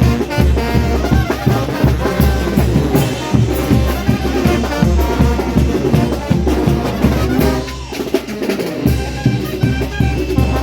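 Mexican banda brass band playing a merengue: brass horns over a steady drum beat. Near the end the bass and drums drop out for about a second, then come back in.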